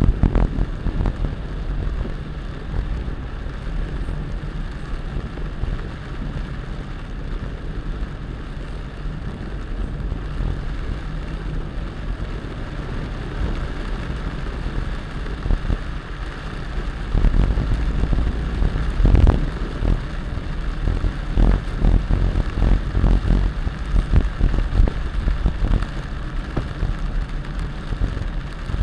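Heavy rain falling over a steady low rumble. About two-thirds of the way through it turns louder and gustier, with many short low thumps.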